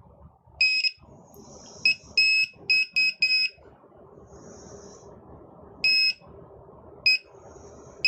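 Handheld metal detector beeping: a single high-pitched tone repeated in an irregular run of short and longer beeps, several in quick succession around the middle, as it alerts on nearby metal.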